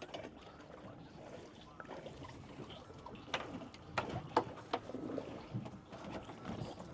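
Water lapping against a boat hull, with a few light clicks and knocks bunched around the middle.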